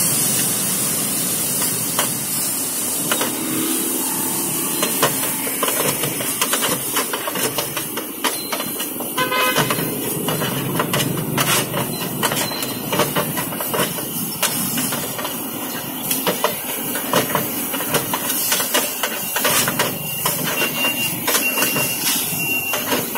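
Noodles frying on a large flat steel pan, with a steady sizzle under a metal spoon and utensil scraping and clinking against the pan. The clinks come often and irregularly.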